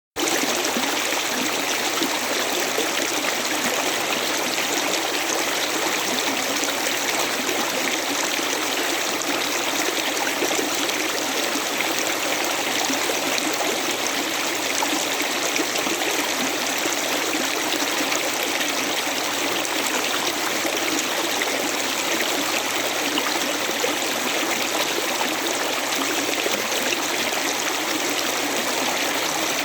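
A river flowing steadily, an even rush of running water.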